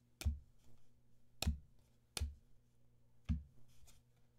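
2023 Panini Phoenix football cards being flipped through in hand, each card snapping as it is moved to the back of the stack: four sharp clicks about a second apart, over a steady low hum.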